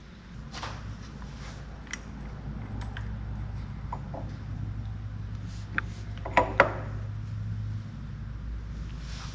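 Light metal clicks and knocks as a pulley and V-belt are handled and fitted on a Caterpillar generator's diesel engine, with a quick pair of sharper knocks about two thirds of the way through, over a steady low hum.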